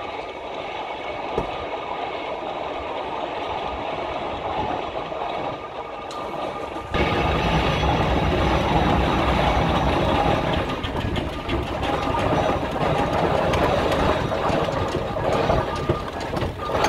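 Steam traction engine running as it travels along the road towing a heavy log wagon, with a steady mechanical clatter. About seven seconds in the sound cuts abruptly to a louder, closer recording of it.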